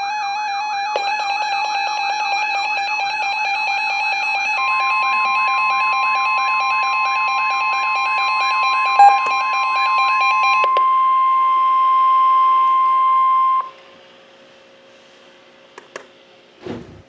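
Weather radio alert alarms: a warbling siren-like tone and rapid pulsing beeps overlap with the steady single-pitch NOAA Weather Radio warning alarm tone, which comes in about four seconds in. The beeps and warble stop about ten seconds in. The steady tone holds alone for about three seconds more, then cuts off to a faint hiss with a few clicks near the end.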